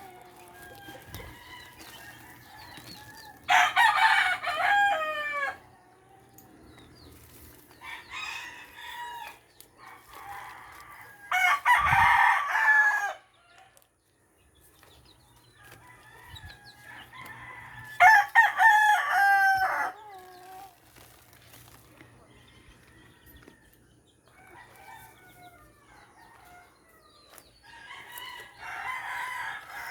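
Roosters crowing repeatedly, with the loudest crows about four seconds in, near the middle and about two-thirds through, and fainter crows and clucks between.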